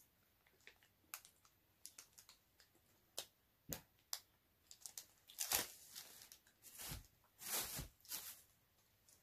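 Faint crinkling and rustling of a plastic chocolate-bar wrapper being handled, with scattered small clicks and a few longer rustles in the second half.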